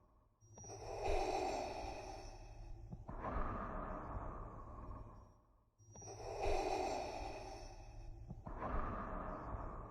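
Darth Vader's respirator breathing sound effect, a hissing mechanical breath made through a scuba regulator. It cycles slowly and steadily, breathing in and out about twice, each stroke lasting some two and a half seconds with a short pause between.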